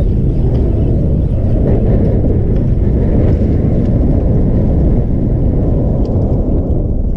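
Wind buffeting the camera microphone: a steady, loud, low rumble.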